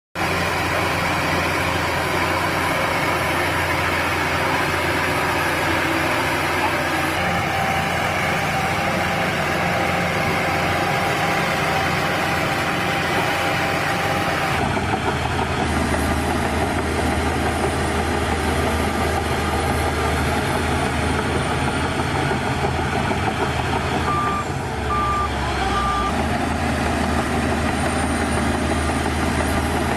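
Bulldozer's diesel engine running steadily, its note shifting about halfway through. Near the end, a reversing alarm gives three short beeps.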